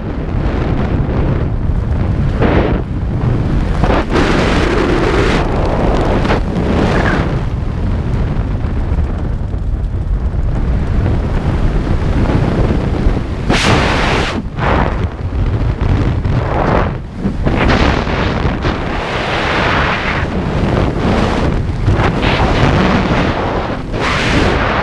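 Wind buffeting the microphone during a parachute descent: a loud, steady low rumble with gusts that swell and ease every few seconds.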